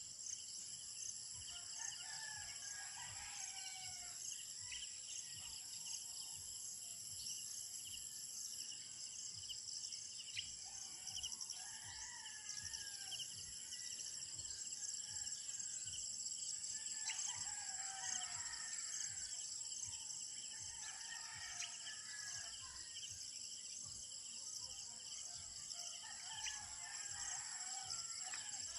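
Roosters crowing about five times, one call every five or six seconds, over a steady high chirring of insects.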